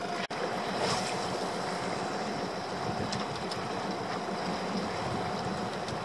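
Small fishing boat's engine running steadily at slow trolling speed, with water washing along the hull.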